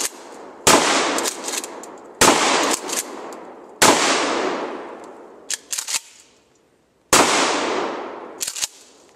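Shotgun fired four times, the shots about a second and a half apart with a longer gap before the last, each blast trailing off in a long echo. Shorter, sharp clicks sound between the shots.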